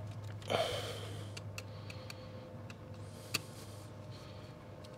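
Faint scattered clicks and a short rustle about half a second in as hands handle loose electrical wires, over a steady low hum.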